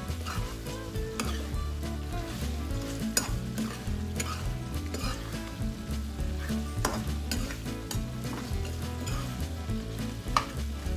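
Chicken curry sizzling in a hot pan while it is stirred with a spoon, mixing in the chili powder and green chili. The spoon scrapes through the pan and knocks against it a few times, sharpest about ten seconds in.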